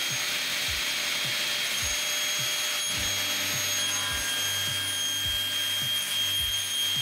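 Circular-saw bench (table saw) running at full speed with a steady high whine, its blade cutting along the edge of a wooden table-leg blank clamped to the sliding carriage.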